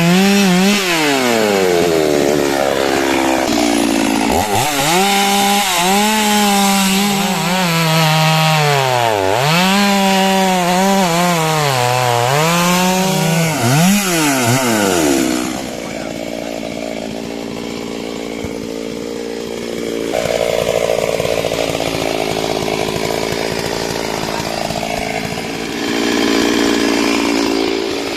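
Two-stroke chainsaw cutting wood, its engine pitch repeatedly dropping under load and climbing back. About fifteen seconds in it falls to a quieter, steadier running.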